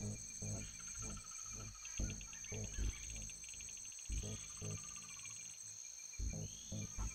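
Greyhound and collie dogs play-fighting, with a run of short low growls, one every half second or so, and a few high chirpy squeaks in the middle.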